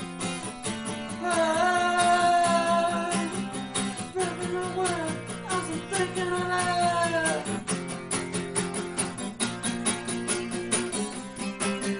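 Music: a song with strummed guitar, a singing voice holding and bending notes during the first half.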